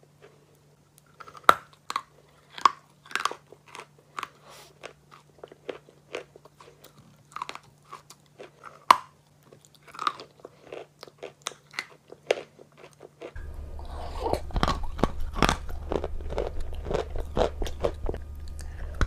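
Close-miked biting and chewing of a wet chunk of chalk: sharp crunches with softer chewing between them. About two-thirds of the way through, a low steady hum comes in and the crunching becomes denser.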